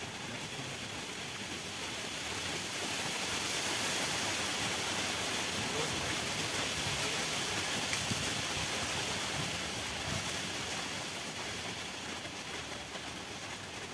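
A steady rushing hiss that swells a couple of seconds in and eases off again toward the end.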